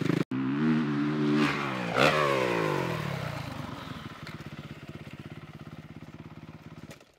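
Dirt bike engine revving, its pitch rising and falling, with a short sharp noise about two seconds in; the engine note then fades steadily as the bike moves away.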